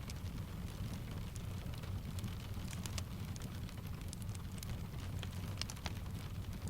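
Mixed ambience of steady rain and a crackling wood fire: a continuous low rumble under an even hiss, with irregular sharp crackles and pops scattered throughout.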